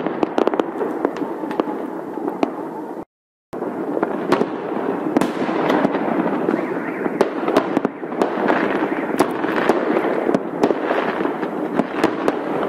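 A barrage of aerial firework shells bursting: many rapid, overlapping bangs over a continuous crackle. The sound breaks off completely for about half a second, about three seconds in.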